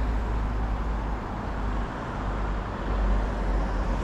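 Outdoor road traffic noise: a steady hiss with a low rumble that swells about three seconds in.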